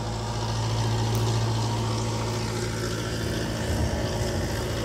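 Engine-driven irrigation water pump running steadily, a continuous low hum at an even pitch, drawing water from the river.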